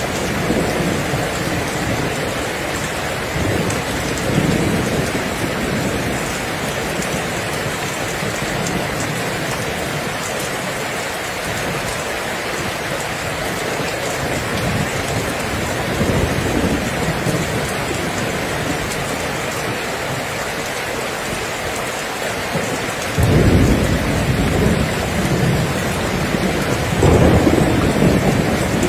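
Steady rain falling, with thunder rumbling low underneath. A louder roll of thunder swells up about two-thirds of the way through and another near the end.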